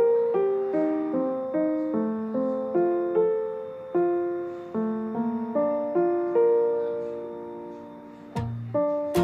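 Background piano music: a gentle melody of single notes, each struck and fading before the next. A couple of sharp clicks come in near the end.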